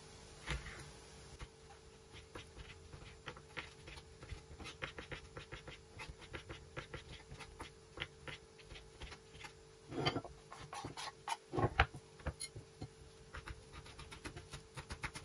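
Kitchen knife chopping on a wooden cutting board, dicing a tomato and then parsley: quick repeated taps, about three to four a second, with two louder knocks around ten and twelve seconds in.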